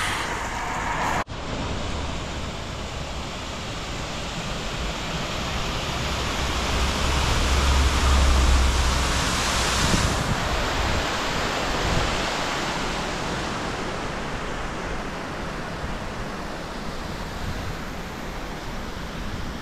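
Wind rushing over the microphone while cycling on an open mountain road, a steady hiss that swells into heavy low buffeting about seven to nine seconds in. There is a very short drop-out just over a second in.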